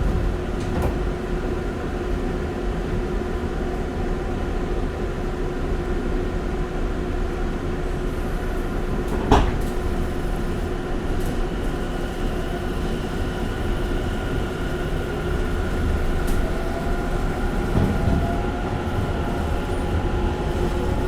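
Inside a Tobu electric commuter train running: a steady rumble with a constant hum from the running gear, one sharp knock about nine seconds in, and a rising whine in the second half.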